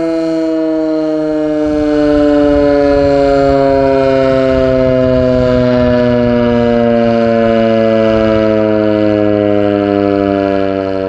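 ASC Tempest T-128 outdoor warning siren sounding during a scheduled siren test: one long, loud held tone whose pitch sinks slowly, swelling louder about two seconds in.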